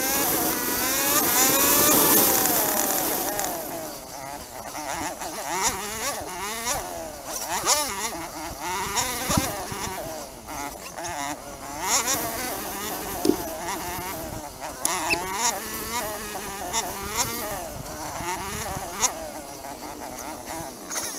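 Dirt bike engine ridden over a rough track, its buzzing note rising and falling as the throttle opens and closes, loudest in the first few seconds. Scattered knocks and rattles from the bike over the bumpy ground.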